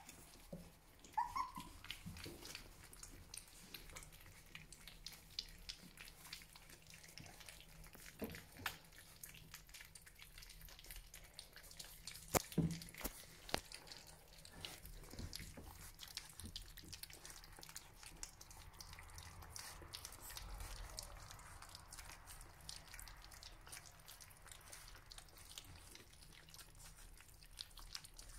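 Three-week-old Border Collie puppies lapping and smacking at a shared dish of soft puppy mousse: many small wet clicks and slurps. There is a short squeak about a second in and one louder knock about halfway through.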